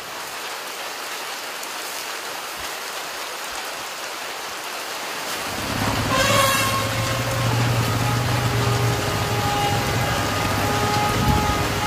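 Heavy rain falling steadily with a hiss. About six seconds in, an Asian elephant gives a short trumpet call, and the sound turns louder and fuller after it.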